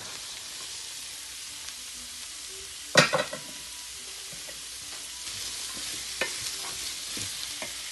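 Diced celery frying with a steady sizzle in hot oil in a stainless steel pan, stirred with a wooden spatula. A sharp knock about three seconds in, and a few lighter knocks of the spatula against the pan near the end.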